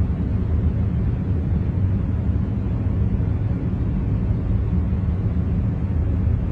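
Steady, deep rumbling noise from a concentration noise track, with most of its weight in the low end and no changes or events.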